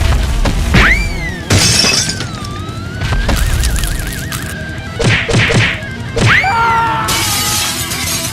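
Background music with sound effects: two swooping tones that rise then fall, a warbling held tone, sharp hits, and two bursts of hissing noise.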